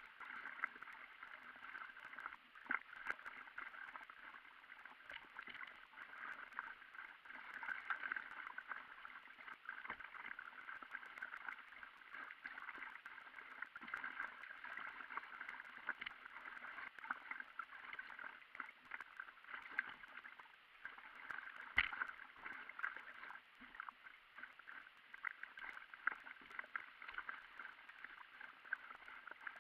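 Paddle strokes and water splashing and gurgling around an inflatable stand-up paddleboard, a dense run of small splashes and clicks that goes on steadily, with one sharper splash about two-thirds of the way in.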